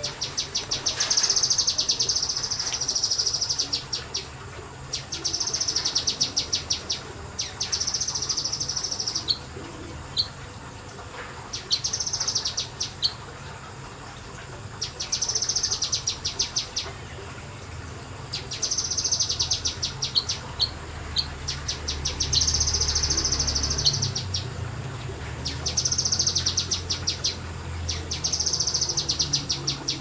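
Kinoi songbird singing in repeated bursts of rapid, high chattering notes, each burst lasting a second or two, with short pauses between.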